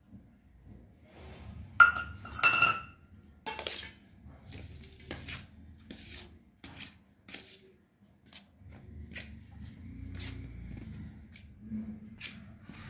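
Steel spoon and cup clinking and scraping against a steel plate as dry flour is stirred, with two loud ringing clinks about two seconds in, then lighter taps and scrapes.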